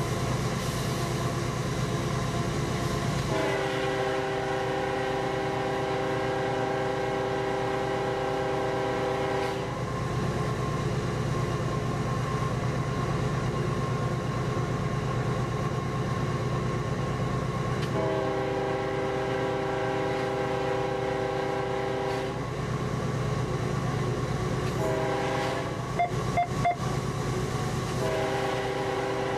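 Locomotive air horn sounding the grade-crossing signal, heard from inside the cab: two long blasts, a short one, then a long one starting near the end, warning a road crossing ahead. Under it, the steady rumble of the moving train, and a few sharp clicks just after the short blast.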